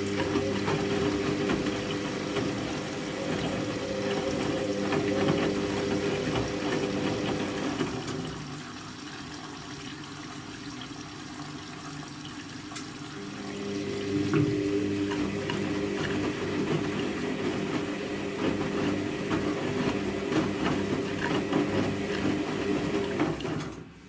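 Front-loading washing machine on its wash cycle: the drum motor hums steadily and the wet laundry sloshes and tumbles in the water. Midway the drum rests for about six seconds, when only a quieter swish is left, then it turns again. The sound cuts off sharply just before the end.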